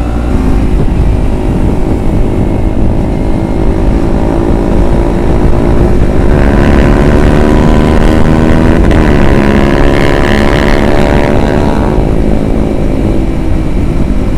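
Kawasaki Ninja 250FI parallel-twin engine running under way, with wind rush on the microphone. The engine note rises from about six seconds in, dips briefly around nine seconds, then eases off near the end.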